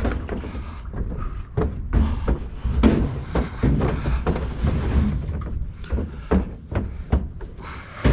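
A washing machine being handled and loaded onto a pickup: a run of irregular metal knocks, clunks and thuds over a low rumble.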